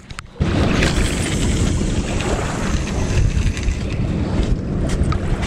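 Wind buffeting the microphone: a loud, steady rumble with no pitch that starts suddenly about half a second in.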